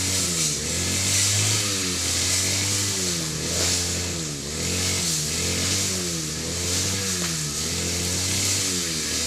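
A small engine running steadily, its pitch dipping and rising again in a regular pattern about once a second, with a steady hiss over it.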